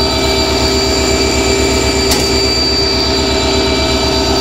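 An EMD two-stroke diesel engine in a WDP4 locomotive, running steadily while the locomotive stands still. A high whine sits over a fast low throb, and there is a single light click about two seconds in.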